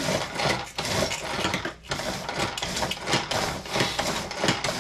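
Dried, brittle pepper pieces crackling, rustling and clicking against a metal sheet pan as they are picked through by hand, a rapid irregular patter of small clicks.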